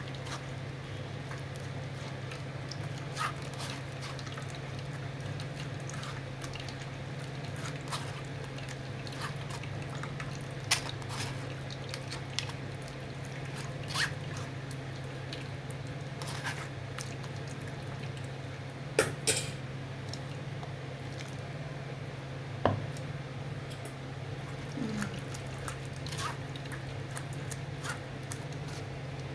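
Blended tomato puree being worked through a sieve: wet squishing and dripping, with occasional sharp clicks, over a steady low hum.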